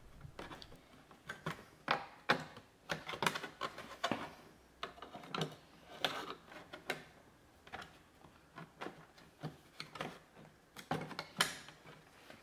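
Flat-blade screwdriver prying at the plastic tabs of a 2006–2010 Ford Explorer side-mirror cap: a run of irregular plastic clicks and scrapes, with a sharper click a little before the end.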